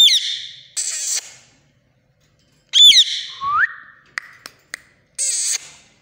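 Indian ringneck parakeet giving short, shrill squawks and calls, one of them ending in a rising whistle about three and a half seconds in. A few light clicks follow a little after.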